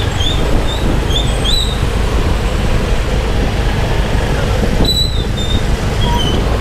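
Steady road noise from a motorbike riding slowly through town traffic: engine and wind rumble on the microphone, with short high chirps heard briefly near the start and twice more near the end.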